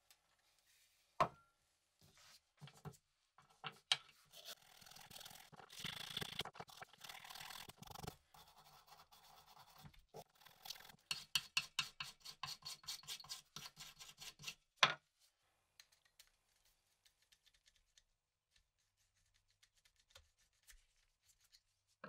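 Small wire brush scrubbing a wet, rusty key, with quick back-and-forth strokes, about three or four a second, that loosen the rust. A single sharp click follows, then it goes quiet.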